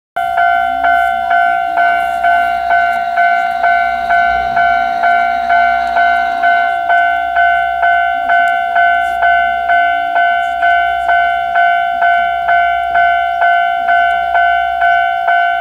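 Japanese railway level-crossing warning bell ringing steadily, about two dings a second.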